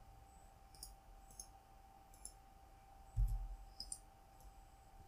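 Computer mouse clicking: about five short, sharp clicks spaced out over a few seconds, with one dull low thump about three seconds in. A faint steady tone hums underneath.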